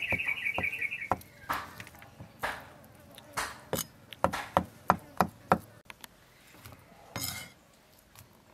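Cleaver knocking through soft cubes of congealed blood onto a wooden chopping block, in irregular single chops, some in quick runs. A short high chirping trill sounds in the first second, and a longer scrape comes about seven seconds in.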